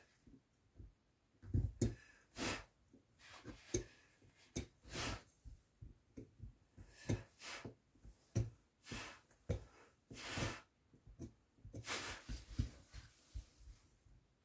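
Wood-carving V-gouge with rounded corners cutting into wood by hand: a run of short, irregular scraping cuts, roughly one to two a second, some with a low knock.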